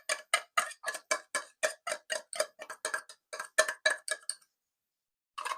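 Utensil whisking tuna in a bowl, clinking against the bowl in a quick, even rhythm of about five strokes a second that stops about four and a half seconds in. One short knock near the end.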